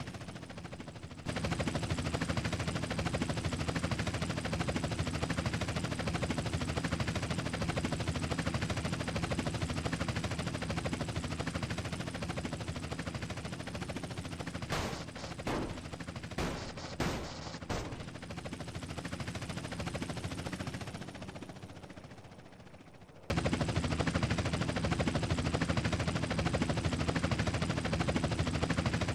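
Helicopter running steadily, with a rapid volley of about seven or eight gunshots past the middle. The helicopter sound then fades and cuts back in abruptly.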